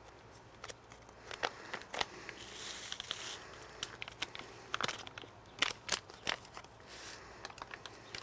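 Grill Mates seasoning packets crinkling and crackling as they are torn open and shaken out, with dry seasoning mix pouring into a glass measuring cup. The sound is scattered sharp crackles, with a short hiss of pouring about three seconds in.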